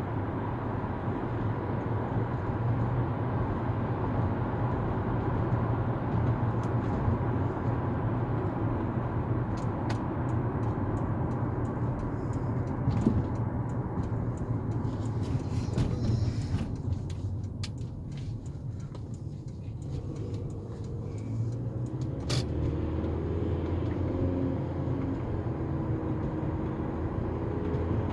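Steady low rumble of a motor vehicle in motion, changing in tone about two-thirds of the way through.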